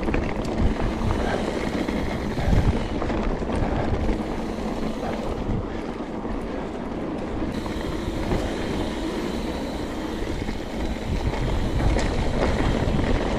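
Trek Remedy mountain bike rolling along dry dirt singletrack: steady tyre noise on dirt with a few short knocks and rattles from the bike over bumps, and wind buffeting the helmet-camera microphone.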